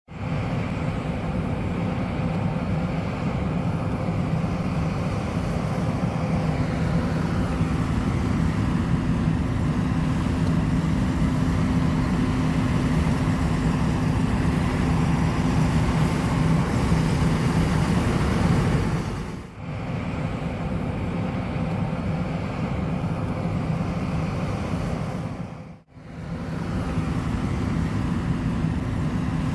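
John Deere S780 combine harvester running steadily while harvesting wheat: a low engine hum under a steady rush of machinery noise, broken by two short drops in level, about two-thirds of the way through and near the end.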